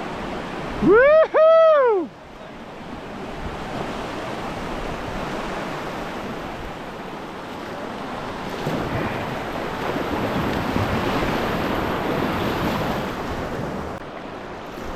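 Rushing water of river rapids, a steady hiss that swells a little in the second half, with wind on the microphone. A loud two-part whoop about a second in.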